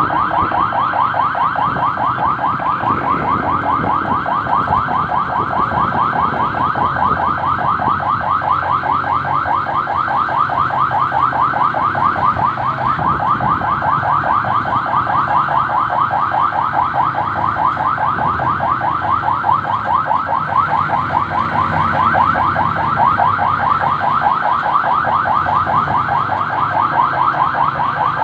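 Electronic siren sounding in a fast yelp, quick rising sweeps several times a second without a break, over the low running of motorcycle-tricycle engines.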